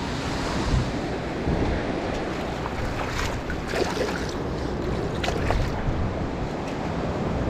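Small surf waves washing over flat sand, with wind rumbling on the microphone. A few seconds in, a hand splashes in the shallow wash several times.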